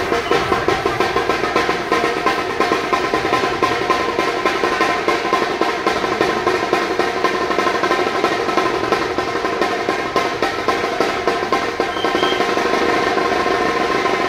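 Procession drumming: a fast, even drum beat at about four strokes a second, with steady held pitched tones sounding under it.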